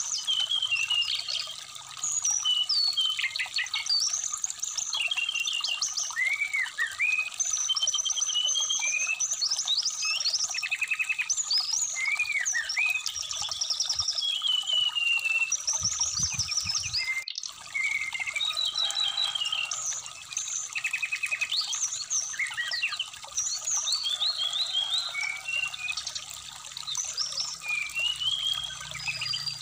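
Brown-chested jungle flycatcher song: a fast, varied run of high chirps, quick trills and whistled up-and-down phrases with short pauses, over the steady trickle of a shallow stream. The sound cuts out for an instant about 17 seconds in.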